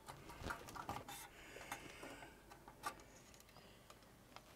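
Faint rubbing and a few light clicks of hands handling a circuit board while a replacement 6502 CPU chip is fitted into its socket.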